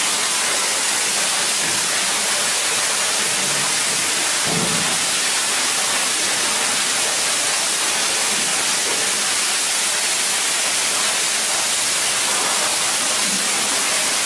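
Steady rush of underground water falling and splashing in a cave passage, an even noise with no let-up.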